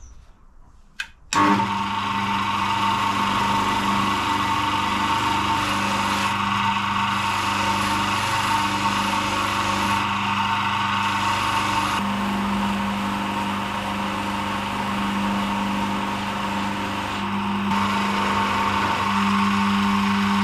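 Bench polisher with a buffing mop switched on about a second in, then running steadily with a hum while a metal engine filler neck is polished on it; its sound shifts slightly every few seconds.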